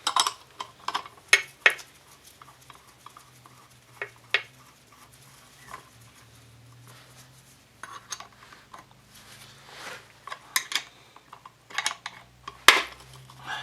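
Steel tools clinking and ticking as a flywheel puller is threaded on and turned against a Honda Dio 27 scooter's magneto flywheel. Near the end comes a single sharp metallic crack, the loudest sound, as the flywheel breaks free of the crankshaft.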